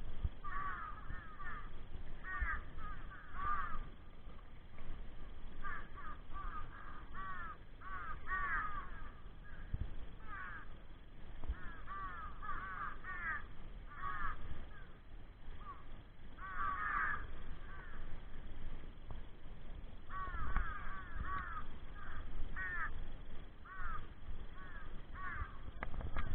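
Crows cawing over and over, in runs of several short arched caws with brief pauses between them.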